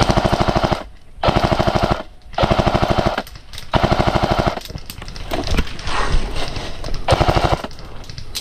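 A&K PKM airsoft electric machine gun firing a string of short full-auto bursts, each under a second long, made of rapid even mechanical cracks from the gearbox cycling.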